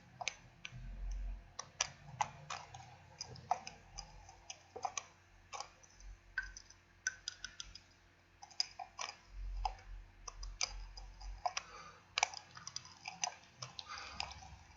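Lid of an Etude House lipstick being clicked and tapped by hand: many sharp, irregular clicks, several a second, with a few soft dull bumps of handling.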